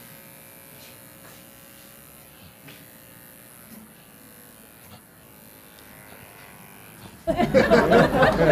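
Electric hair clipper buzzing steadily. About seven seconds in, a loud voice breaks in.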